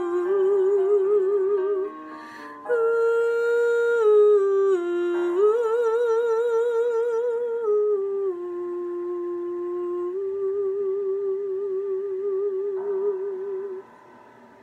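A woman's voice singing a wordless closing melody, held notes with vibrato that step down in pitch, ending on one long note of about six seconds. A quiet karaoke backing track plays beneath, with a chord change near the end.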